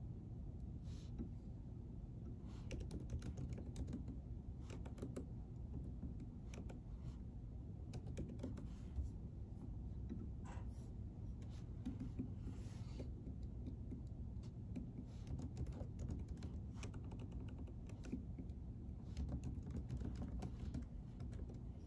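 Typing on a computer keyboard: irregular runs of key clicks over a steady low hum.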